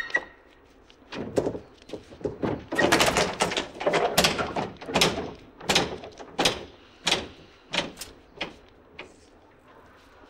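Banging and clattering from a truck's wooden drop-side tailgate and its metal latches as they are worked, with a dense run of knocks in the middle and then single knocks coming evenly, a little under one a second, before it stops near the end.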